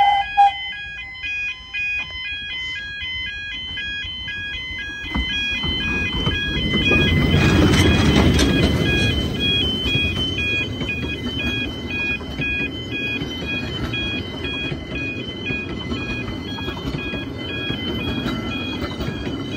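Level crossing warning alarm sounding its repeating alternating-tone wail throughout, while the coaches of a narrow-gauge steam train roll over the crossing. Their rumble builds from about five seconds in, is loudest around eight seconds, then carries on steadily.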